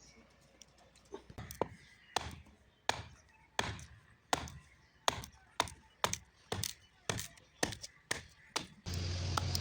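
Hammer blows on metal, evenly paced at about one every 0.7 seconds. Near the end a machine starts up with a steady low hum.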